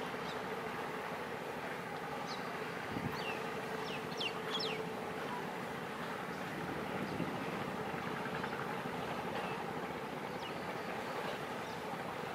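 Steady low drone of a distant fishing boat's engine carried across the river, over a constant hiss of wind and water. A few short, high, falling bird chirps come between about two and five seconds in.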